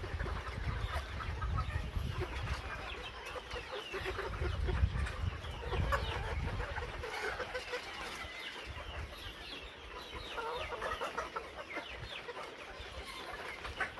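A flock of caged Arab laying-breed pullets clucking, many short calls overlapping without pause. A low rumble sits under the calls for the first few seconds.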